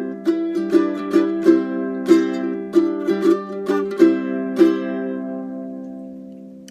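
Kala KA-8 eight-string tenor ukulele being played, a series of plucked notes and strums about every half second over a held chord. A final chord is struck near the middle and left to ring out, fading away over the last two seconds.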